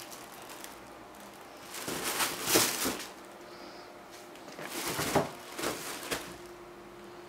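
Two bursts of rustling and scrabbling, about two seconds in and again about five seconds in, as cats play in and around a fabric cat tunnel on a tiled floor.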